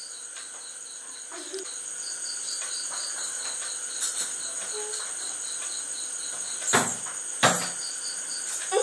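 Insects chirping: a steady high buzz with a pulsing chirp about four times a second. Two sharp knocks come near the end.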